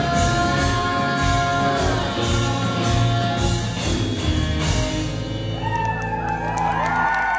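Live rock band with electric guitars, bass, drums and a female lead singer playing the closing bars of a song. About five seconds in, the drumming stops and a final chord is held and rings out, with wavering voices rising over it.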